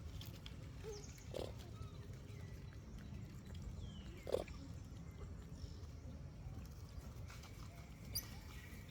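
Monkeys making a few short calls, the loudest about four seconds in, over a steady low rumble.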